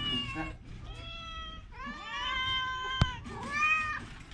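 Domestic cat meowing repeatedly: about four meows, the longest in the middle of the run. A single sharp click sounds about three seconds in.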